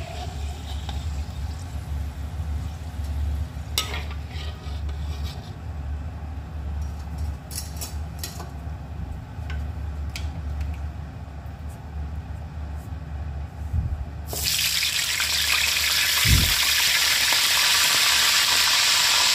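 Potato sticks dropped into hot cooking oil in a wok, starting to sizzle loudly and steadily about fourteen seconds in. Before that the oil sits quiet under a low hum, with a few sharp clinks of a metal spoon against the pan.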